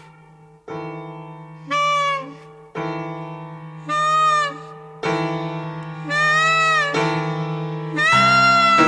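Free-jazz piano and clarinet duet. Piano chords are struck about every two seconds and left to ring, each answered by a short clarinet phrase that bends in pitch. Near the end the clarinet holds a long note over a fresh chord.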